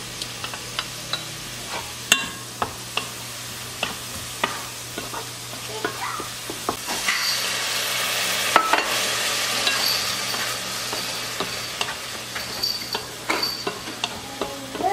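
Home cooking: a utensil clicking and clinking against cookware many times while food sizzles, the sizzling hiss swelling about halfway through and easing near the end.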